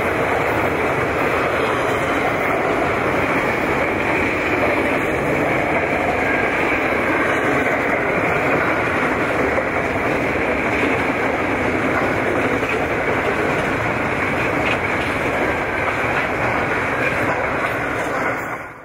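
Steady rolling noise of a long intermodal freight train's container wagons passing on a rail bridge: steel wheels running on the rails. The sound drops away quickly near the end.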